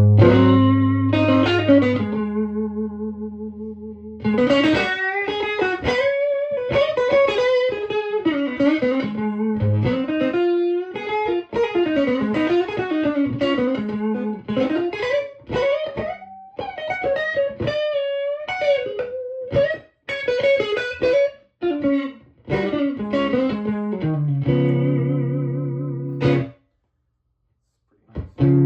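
Electric guitar played through a Victoria 35310 tweed-style tube amp (a Fender 5E7 Bandmaster clone with three 10-inch Jensen speakers): a ringing chord, then quick single-note lead lines. The playing stops for about two seconds near the end, and another chord is struck.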